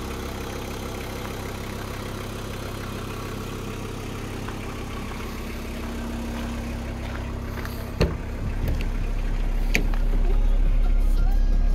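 VW Transporter T4 2.4 D five-cylinder diesel engine idling steadily. About eight seconds in a door latch clicks, and the idle grows louder, with more low rumble, as the driver's door is opened.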